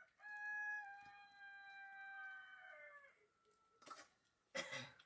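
A rooster crowing: one long call of about three seconds, held steady and dropping in pitch at the end. A brief clatter follows about four and a half seconds in.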